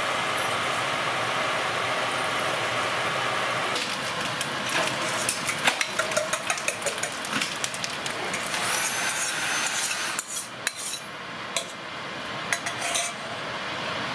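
Diced potatoes sizzle in a frying pan. About four seconds in, a silicone spatula starts scraping and tapping against the pan, along with clinks of a stainless steel bowl, which rings briefly as beaten eggs are poured in. The sizzle carries on more softly underneath.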